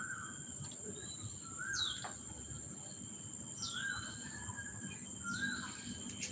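A bird calling over and over, a short two-part call of a low note and a higher falling note about every two seconds, over a steady high-pitched insect drone.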